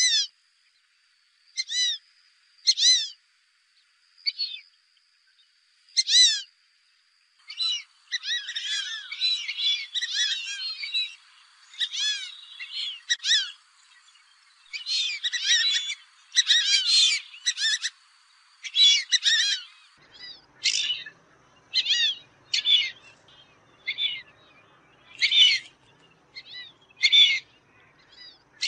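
Fulvous whistling ducks giving short, squeaky whistled calls: single calls at first, then many birds calling over one another in the middle, thinning back to spaced single calls near the end. A thin steady high tone runs beneath the first two-thirds and stops about two-thirds of the way through.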